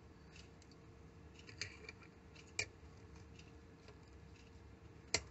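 Faint, scattered clicks from a small hand tool being handled: a few light ones, then a sharper one about five seconds in, over low room hiss and a faint steady hum.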